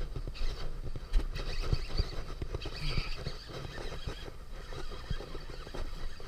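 Irregular knocks, clicks and thumps from rod, reel and boat handling while a hooked bass is fought and reeled in.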